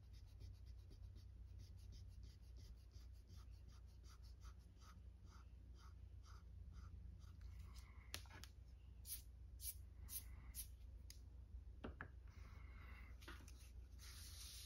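Pen-style Pentel Clic Eraser rubbing back and forth on a comic book's paper cover, faint, about three strokes a second, dry-cleaning surface dirt from the old paper. About halfway through the rubbing stops, and paper handling follows: short scrapes and a few sharp clicks as the comic is moved.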